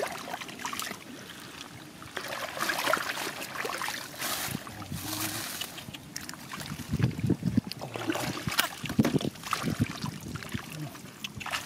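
Hands sloshing and splashing through shallow muddy water in irregular bursts while groping for fish, with a few heavier splashes in the second half.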